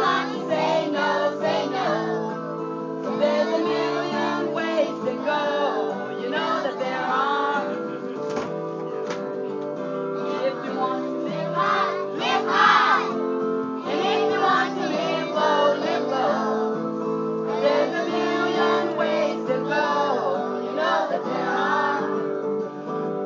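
A group of young children singing a song together over instrumental accompaniment that holds steady chords.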